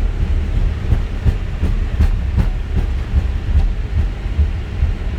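Airbus A320 rolling out on the runway just after touchdown, heard from inside the flight deck: a deep rumble from the wheels and airframe with irregular thumps and knocks as the landing gear runs over the runway surface.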